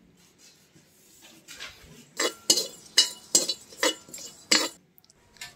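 A metal spoon scraping and clinking against a metal kadhai while stirring dry whole spices (fennel, cumin, ajwain, fenugreek, black pepper) as they are dry-roasted. The strokes come about two a second, starting about a second and a half in.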